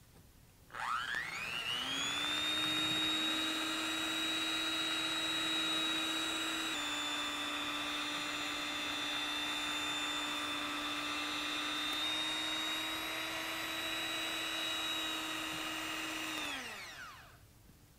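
Electric hand mixer whipping egg whites into meringue: the motor whirs up to speed about a second in, runs at a steady high hum with a slight jump in pitch twice, then winds down near the end.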